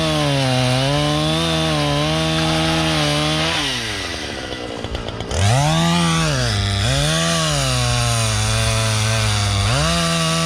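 Gas chainsaw running at high revs while cutting firewood, its pitch repeatedly dipping and rising. About three and a half seconds in it drops off and goes quieter for over a second, then revs sharply back up.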